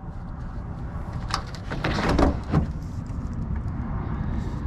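Steady low rumble of wind on the microphone, with a few clicks and a short scrape about two seconds in as a stubborn TV part is worked at by hand.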